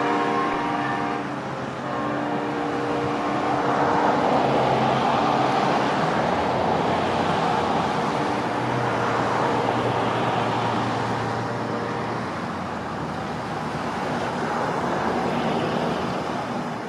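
Nathan K5LA five-chime air horn on a departing Amtrak P42 locomotive sounding in the distance: one chord blast ending about a second in, another from about two to three and a half seconds, then fainter blasts. Under and after the horn runs a steady rushing noise, loudest in the middle.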